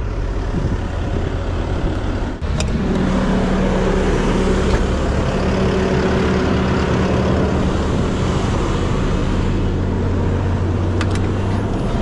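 Truck engine running steadily at low speed with a constant hum while the truck is eased forward. There is a brief drop and click about two and a half seconds in.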